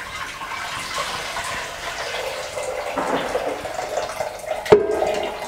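Meat broth poured in a steady splashing stream from a metal pot through a metal strainer into another pot. A single sharp metallic knock sounds near the end.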